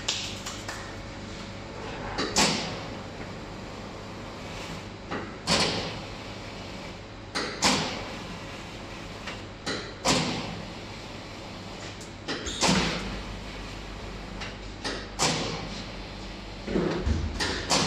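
Electric reversible dough sheeter running as it passes croissant dough back and forth through its rollers. A steady motor hum sits under a sudden swishing knock about every two to three seconds.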